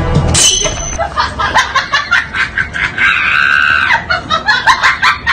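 Excited high-pitched vocal sounds: quick choppy bursts, then one shrill cry held for about a second around three seconds in.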